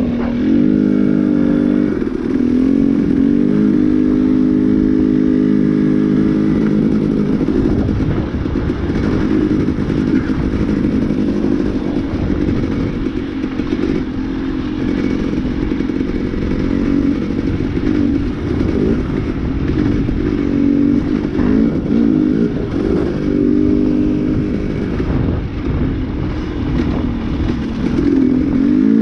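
Dirt bike engine running as it is ridden along a dirt trail, its pitch rising and falling again and again as the throttle opens and closes.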